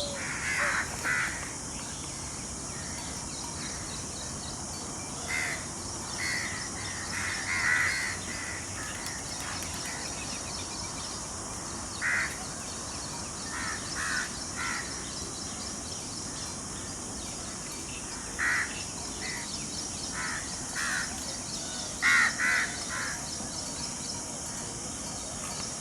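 Crows cawing: short calls, singly and in quick runs of two or three, at irregular intervals over a steady high hiss.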